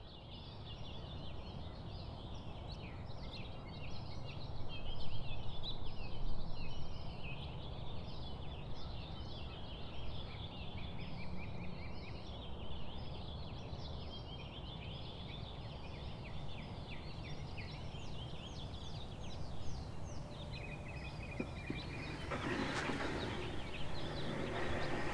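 Many birds chirping and singing together over a low steady rumble. Near the end a brief rush of noise comes up, followed by a few sharp clicks.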